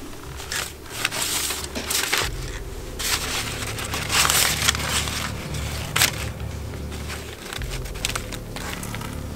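Old paper documents rustling and crinkling as a gloved hand shuffles through and turns over a pile of loose sheets. The rustling comes in irregular bursts and is loudest about four seconds in, then dies down after about six seconds.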